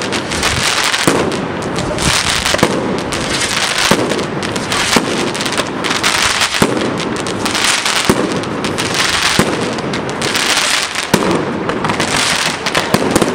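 Fireworks going off in quick succession: a dense, unbroken crackle of bangs and pops as launches with rising spark trails and aerial bursts follow one another.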